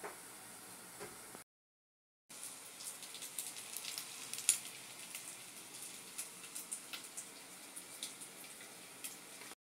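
Rice-stuffed beef intestine (mumbar) frying in hot oil, sizzling with frequent sharp crackles and pops. The sound cuts out completely for about a second near the start.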